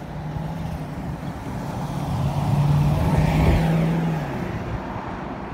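A motor vehicle passing close by: its engine hum and tyre noise build up, are loudest about three seconds in, then drop slightly in pitch and fade away.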